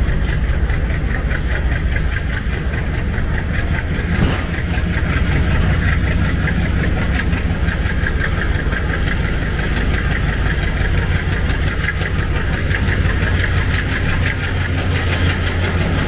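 ALCo diesel locomotive engine chugging hard as the train accelerates away from a station halt, a steady low rumble with an even beat. A single brief knock about four seconds in.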